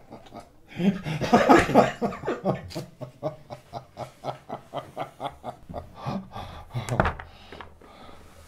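A man's long, rhythmic chuckling laugh, short breathy 'heh' pulses about three a second, loudest about a second in and tailing off later. A single thump about seven seconds in.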